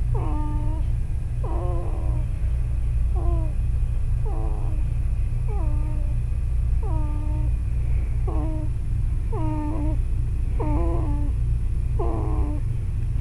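Two-week-old baby snoring in his sleep: a short pitched note that falls in pitch with each breath, about once every second and a quarter, over a steady low rumble.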